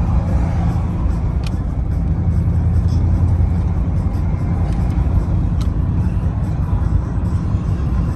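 Steady low rumble of a vehicle's engine and tyres, heard from inside the cab while driving.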